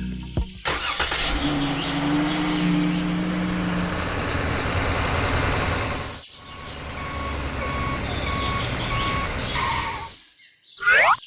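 A vehicle engine running, then after a cut an engine running with a reversing alarm beeping about twice a second.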